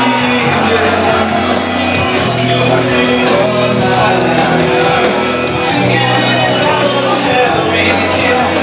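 Loud music played over PA speakers, with people in the crowd shouting over it.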